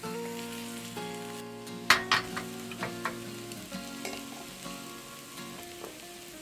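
Rolled egg omelette sizzling in oil in a square tamagoyaki pan on a gas burner, with a few sharp metal clacks about two seconds in.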